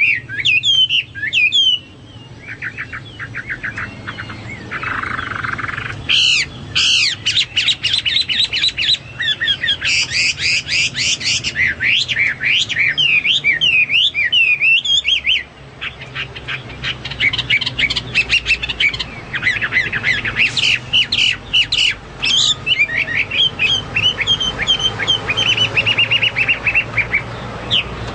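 Hwamei (melodious laughingthrush) singing a loud, varied song of fast sweeping whistles and runs of rapid repeated notes, with a brief harsh rasp about five seconds in.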